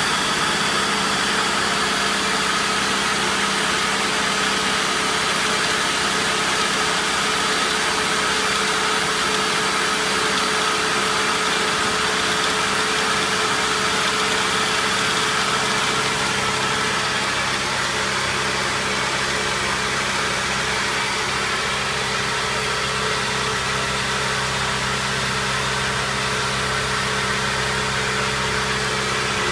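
CNC-converted Optimum BF20L milling machine running: a steady machine whir with several constant tones, whose pattern shifts slightly about three-quarters of the way through.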